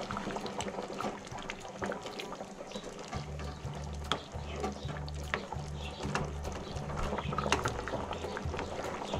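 Pot of rice and freshly added boiling water bubbling on a high gas flame, with scattered small clicks and ticks. Background music with a low bass line comes in about three seconds in.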